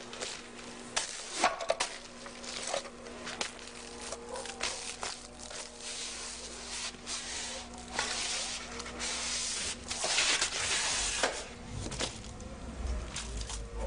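Hard shoes treading on slices of toast strewn over a floor: irregular crunches and scuffs, with a denser patch of rough rustling about two-thirds of the way through.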